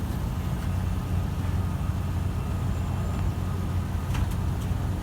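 Metrolink diesel locomotive idling with a steady low hum, with a couple of faint clicks about four seconds in.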